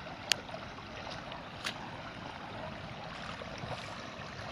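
Floodwater running steadily, a continuous rushing hiss, with a sharp click about a third of a second in and another at about a second and a half.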